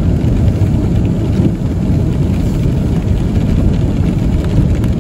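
Car cabin noise while driving on a rain-wet road: a steady low rumble of tyres and engine, with rain on the car.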